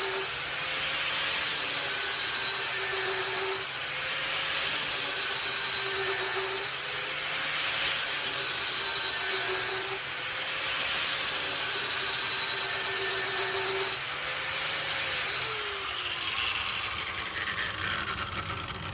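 Angle grinder grinding the cutting edge of a steel mower blade held in a sharpening jig. It goes in about four passes of two to three seconds each, louder each time the wheel bears on the steel, over the grinder's steady whine. Near the end the grinder is switched off and its pitch falls as it spins down.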